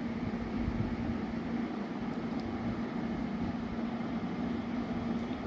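Steady mechanical background hum with a constant low tone under an even hiss, the kind a room air conditioner or fan gives.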